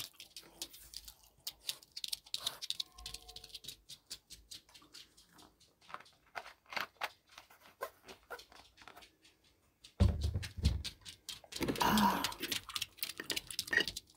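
Small clicks and crackles from a plastic cola bottle being handled and its cap twisted, with a short whine from a Boston terrier about three seconds in. From about ten seconds in come louder thumps and scuffling as the dog comes up beside the table.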